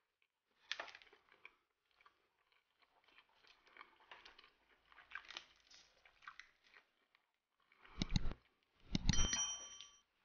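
Crisp baked filo crust of a gibanica crackling and crunching as a piece is torn apart by hand. Near the end come two loud thuds, the second with a short bell-like ding: a subscribe-button sound effect.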